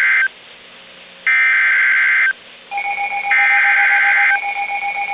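Emergency Alert System SAME header on NOAA Weather Radio, the digital data burst that opens a warning: identical buzzing data bursts about a second long, a second apart, with one ending just after the start and two more following. A second steady, finely pulsing electronic tone comes in just before the last burst.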